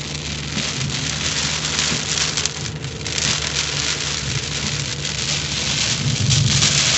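Heavy rain pelting the car's roof and windshield, heard from inside the cabin as a dense, steady hiss, over the low drone of the moving car. The downpour grows heavier about halfway through and heaviest near the end.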